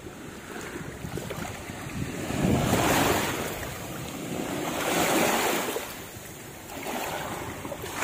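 Sea waves washing up a sandy beach, rising and falling in surges, the two loudest about three and five seconds in, with wind rumbling on the microphone.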